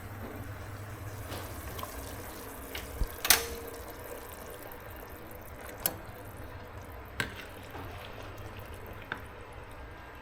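Liquid sloshing and splashing as pieces of pork belly go into a pot of boiling fish-sauce broth, with a few sharp knocks, the loudest about three seconds in.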